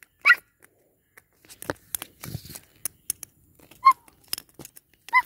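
A small plastic toy tapping and clicking on paving tiles as it is moved along, with a short scraping rub about two seconds in. Three brief high-pitched yips are spread through it.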